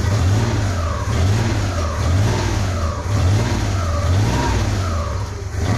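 Multicab's 12-valve engine running and being revved in short, even blips about once a second, now that its ignition-key starting fault has been fixed.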